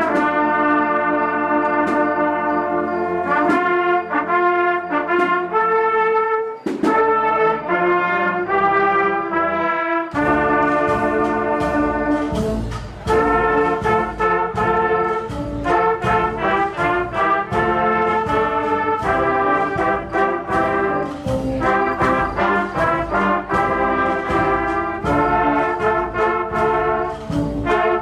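Brass band music: held brass chords, then about ten seconds in drums and low brass come in with a steady beat.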